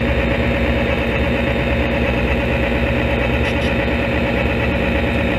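Locomotive engine sound running steadily: a continuous low rumble with a dense hum as the train moves.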